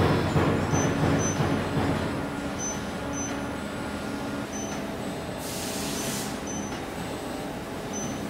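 Hydraulic press brake running as sheet steel is bent, louder and noisier over the first two seconds, then settling into a steady machine hum with faint short high beeps. A brief hiss of air comes about five and a half seconds in.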